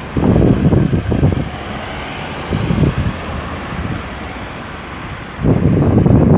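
Road traffic passing, with steady tyre and engine noise, and gusts of wind buffeting the microphone in loud low rumbles at the start and again near the end.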